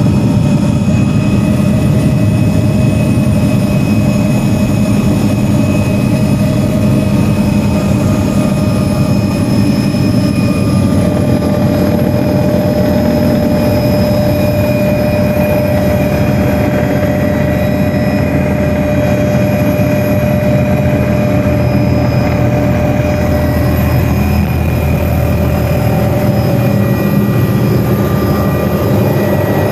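A helicopter in flight heard from inside its cabin: a loud, steady drone of rotor and engine with a few thin, steady whines above it.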